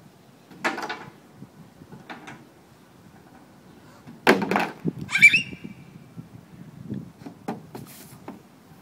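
Knocks and thumps of a toddler moving about on a playground slide's platform, the loudest about four seconds in. A short high squeal from her a second later, falling in pitch, and two lighter knocks near the end as she sits down at the top of the slide.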